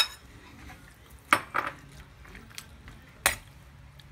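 A metal spoon clinking and scraping against a bowl and a stainless steel pan as raw marinated beef slices are scraped in and stirred in the dry pan. There are a few sharp clinks, the loudest about a second and a quarter in and just past three seconds in.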